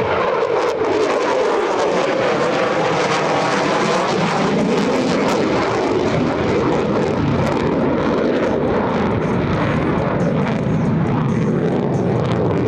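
Loud, steady jet noise of a Navy F-35C Lightning II's F135 turbofan as the fighter flies its demonstration, with some crackle in the roar.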